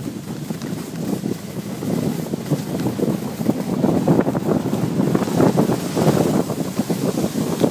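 Wind buffeting the microphone of a camera carried at speed down a ski slope, mixed with the rushing scrape of sliding over snow. It grows louder after the first couple of seconds.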